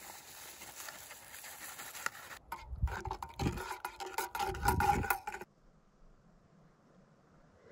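Hot chocolate mix poured into a metal camp mug with a soft rustle, then a spoon stirring and scraping against the mug's metal sides, louder, for about three seconds. The sound stops abruptly about five and a half seconds in, leaving only faint background.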